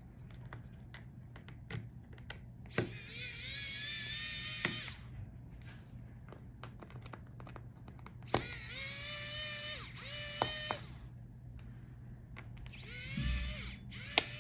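Small electric precision screwdriver whirring in short runs, three times, as it backs out laptop battery screws. Light clicks of screws and tools come between the runs.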